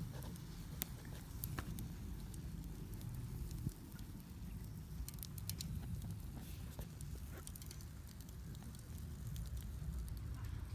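Wood campfire burning under a cooking pot: a steady low rumble with irregular sharp crackles and pops of burning wood.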